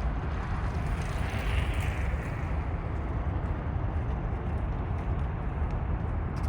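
Outdoor background noise: a steady low rumble under an even hiss, swelling briefly about a second in.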